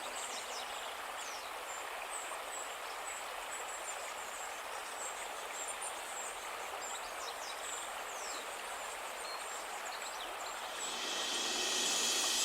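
Steady rush of running water with small birds chirping and trilling, mostly in the first half; the rushing swells louder in the last second or so.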